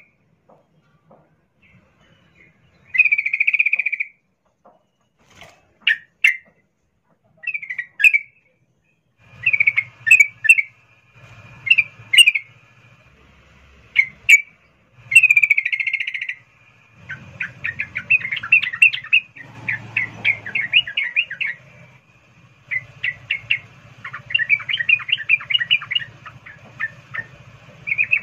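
Yellow-vented bulbul (trucukan) calling: short bubbling phrases separated by pauses, then from about halfway through a long run of fast chattering notes. This is the female's breeding-season call to a male.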